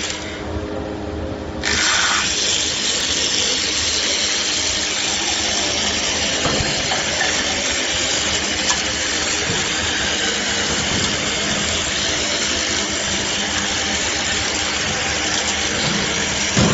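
Round rod milling machine running, its motor humming, as its cutter head turns a square wooden blank into a round broom handle. The steady cutting noise comes in about two seconds in and holds.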